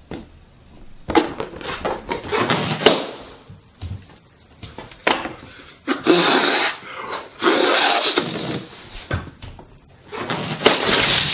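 A rubber balloon being blown up by mouth: several long puffs of air of about a second each, with short knocks and rustles before them.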